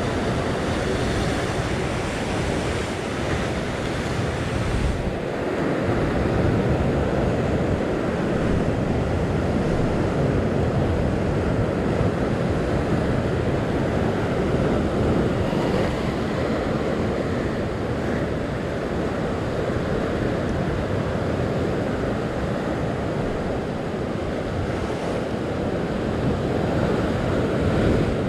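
Ocean surf washing and breaking against the rocks below, mixed with wind buffeting the microphone: a steady rush with no break.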